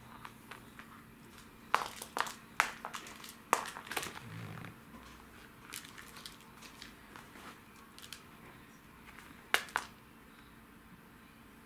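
Scattered sharp taps and scuffs on a wooden floor as a cat plays with a string teaser toy and its toy mouse. They come in a quick cluster between about two and four seconds in, and one more sharp tap falls near the end.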